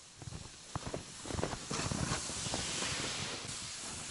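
Boots crunching in snow, then a plastic sled sliding past over the snow, a hiss that swells about a second in and fades near the end.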